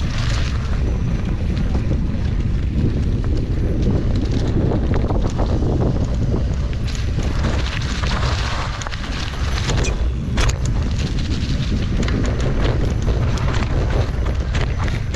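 Mountain bike riding over a dirt trail: wind on the microphone makes a steady low rumble, with scattered sharp clicks and rattles from the bike, one loud one about ten seconds in.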